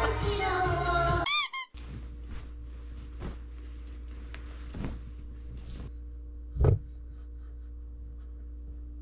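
Upbeat background music cuts off about a second in with a short, loud, warbling squeak sound effect. Then a steady low hum with a few faint rustles of a blanket and one dull thump past the middle.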